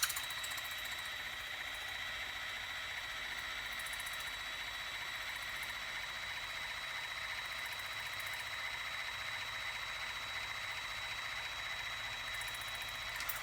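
Bitvae C1 water flosser running steadily: its small pump motor gives a constant buzzing hum with a high whine over the hiss of the water jet.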